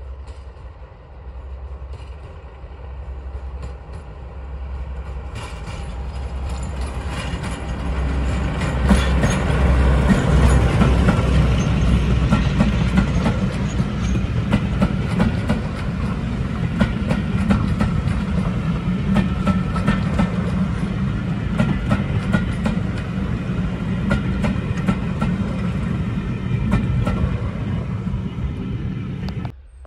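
Diesel locomotive hauling a passenger train approaching and passing close by. The engine's deep thrum builds to its loudest about ten seconds in, then the coaches roll past with their wheels clattering, until the sound cuts off suddenly near the end.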